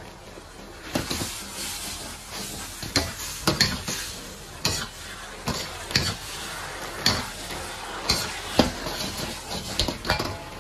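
Metal ladle stirring napa cabbage stems in a wok over sizzling heat, knocking and scraping against the wok about once a second from about a second in, as starch slurry is worked in to thicken the sauce.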